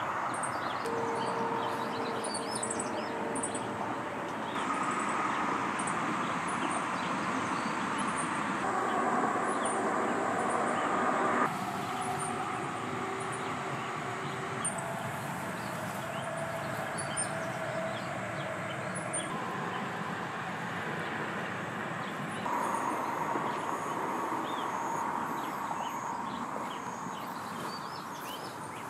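Soft background music of held chords that change every few seconds, with faint, short, high bird chirps.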